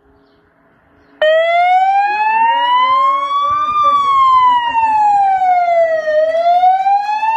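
Police car siren switching on suddenly about a second in, sounding a slow wail that rises, falls and rises again.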